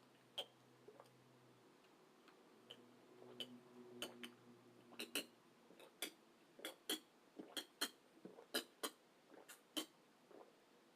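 Close-up eating sounds: a run of short, sharp wet mouth clicks and smacks from chewing. They are sparse at first and come faster, about three a second, in the second half.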